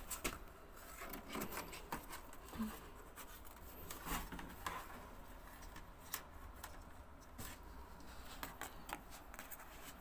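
Faint handling sounds on plastic washing-machine parts: light rubbing with scattered small clicks.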